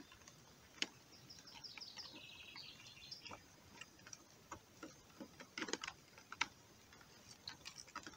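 Scattered light clicks and rustles of hands handling a collapsible mesh crayfish trap while stuffing garlic bait into it. A short, high, descending bird trill sounds about one and a half seconds in.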